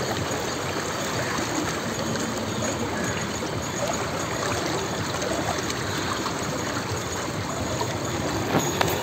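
Water of the River Ganga streaming steadily past, with a brief click near the end.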